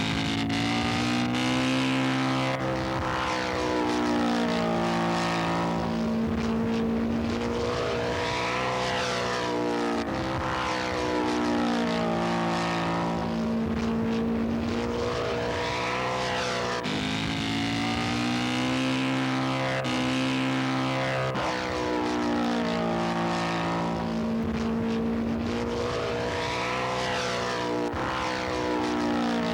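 Engines of radio-controlled scale model airplanes flying past again and again, each pass with a pitch rise and fall, the tone shifting abruptly several times.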